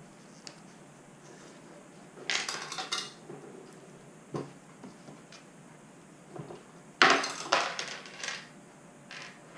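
A small loose metal screw rattling and clinking inside a plastic headlight housing as the housing is handled. The rattling comes in two bursts, the second, about seven seconds in, louder and sudden.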